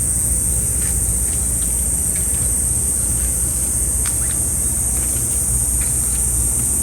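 Insects calling in a steady, unbroken high drone, over a continuous low rumble and a few faint ticks.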